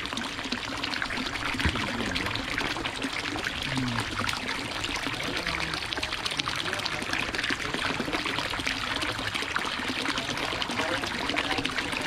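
Water pouring steadily from a PVC pipe outlet into a fish tank, splashing on the water surface.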